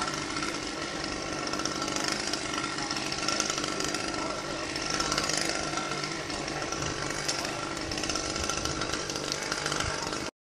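Chainsaw running steadily at one speed, stopping abruptly near the end.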